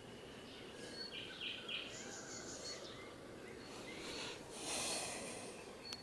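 Quiet garden ambience with a few short, high bird chirps in the first half and a brief breathy rustle about five seconds in.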